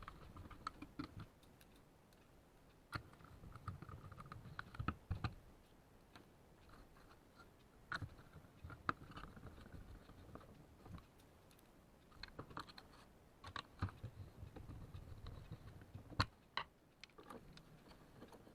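Scattered light plastic clicks and small knocks of hand work on small parts as a laser printer's fuser drive gearbox is reassembled and fitted, with a few sharper knocks among them.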